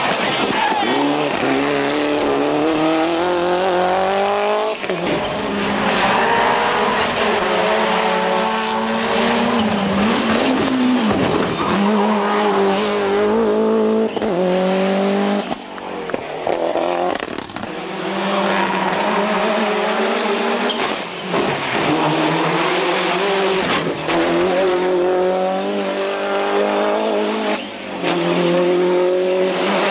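Toyota Celica GT-Four ST185 Group A rally car's turbocharged 2.0-litre four-cylinder engine at full throttle, its pitch climbing through the gears again and again. It breaks off several times for gear changes and lifts.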